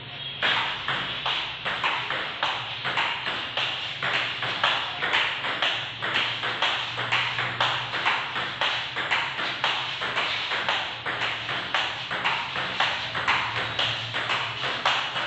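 Table tennis forehand rally: the ball clicking off a DHS Hurricane 301 bat and bouncing on the table in a quick, even rhythm, about four hits a second, over a steady low hum.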